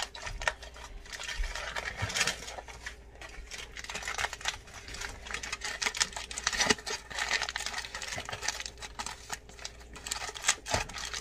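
Aluminum foil crinkling as it is folded and pressed by hand into a wrap: a dense run of small crackles with a few louder crunches.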